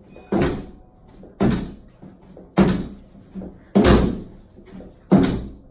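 A person jumping repeatedly on a frameless glass-glass solar panel lying on the floor, landing in five heavy thuds about every 1.2 seconds with lighter knocks between, as part of a test of whether the panel will crack.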